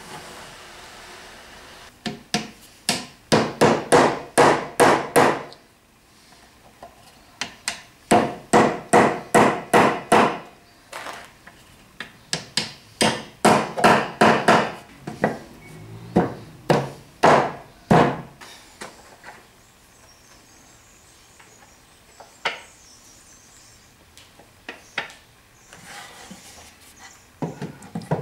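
Wooden mallet knocking on chestnut boards as a doweled chest is assembled: several runs of sharp blows, about three a second, with short pauses between runs, then a few lighter, scattered knocks near the end.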